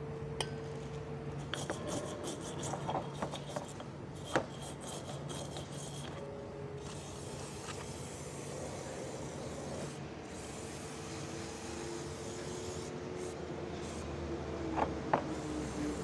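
Aerosol contact cleaner hissing through a straw onto a metal EGR housing, with rubbing and scrubbing as the part is cleaned and handled, over a steady low hum. Light clicks in the first few seconds and one sharp knock about four seconds in, as the housing is turned and set against the tray.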